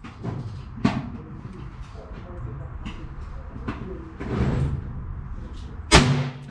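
A single .22 LR shot from a long-barrelled Taurus revolver near the end, sharp and loud, with a brief low hum ringing after it. A quieter bang comes about a second in.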